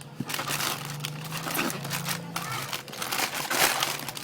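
Ice cream packaging crinkling and rustling as it is handled, in short irregular bursts.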